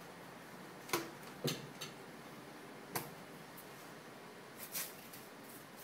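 A few sharp, light taps and clicks during spoon-feeding at a plastic high-chair tray: four in the first three seconds, then two softer scuffs near the end.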